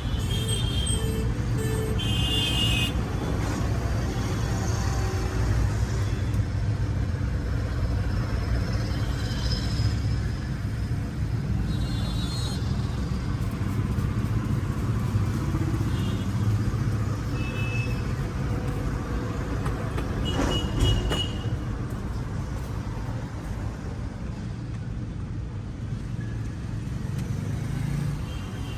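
Steady low rumble of street traffic, with short high-pitched beeps now and then and one sharp knock about two-thirds of the way through.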